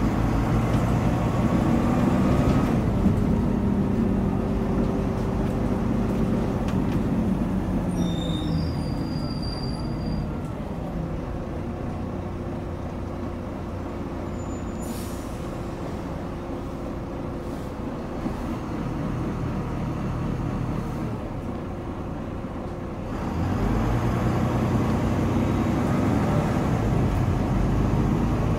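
Diesel bus engine and drivetrain heard from inside the passenger saloon, its note rising and falling in pitch as the bus works. It eases to a quieter steady running sound for about ten seconds, with a brief hiss midway, then grows louder again a few seconds before the end.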